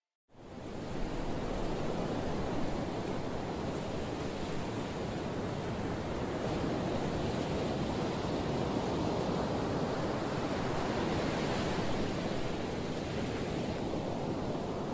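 A steady rushing noise, like surf or static, switching on abruptly just after the start, with no tune or voice in it.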